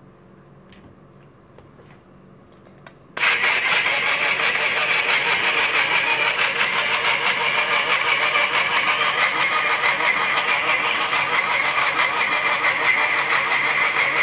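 A few faint clicks, then a toy food processor switches on about three seconds in. Its small motor whirs steadily and loudly as it mixes glue and water into slime.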